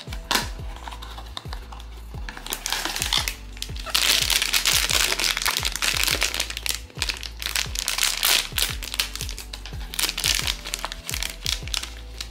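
Black foil blind-box bag crinkling and crackling as hands turn it over and tear it open, loudest a few seconds in. A short snap near the start as the cardboard box is pulled open. Background music with a steady beat plays throughout.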